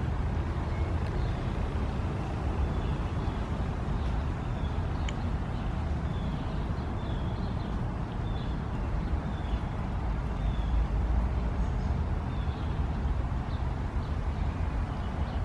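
Steady low rumble of background traffic, with faint short chirps of birds scattered through it.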